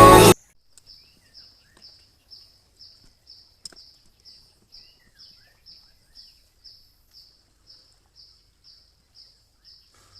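Music cuts off just after the start, leaving a faint high chirp repeated steadily about twice a second, with a single click a little under four seconds in.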